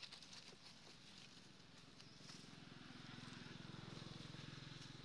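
A faint low engine hum with a fast, even pulse, growing louder about halfway through, over light rustling and clicks.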